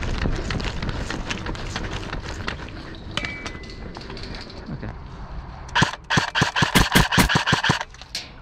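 Airsoft AK-74U replica rifle firing one rapid full-auto burst of about two seconds, a fast even rattle of shots, after several seconds of quieter movement noise.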